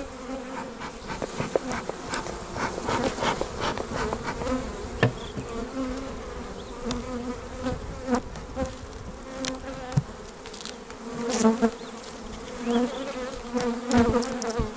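Honeybees buzzing over an opened hive, a steady hum that swells and fades as bees fly about. Scattered knocks and clicks of the wooden hive frames being handled and pried with a hive tool, louder near the end.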